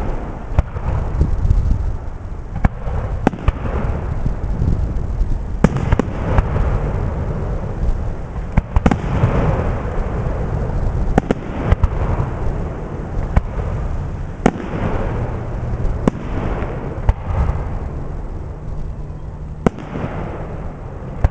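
Aerial firework shells bursting one after another: a sharp bang every second or two, with a low continuous rumble of booms and echoes between them.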